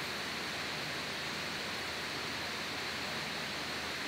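Steady, even hiss of room tone, with no other sound.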